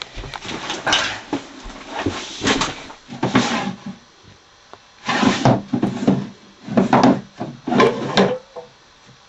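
The drawers of a small wooden nightstand being slid open and shut about six times in a row, each one a short scraping slide, as they are searched.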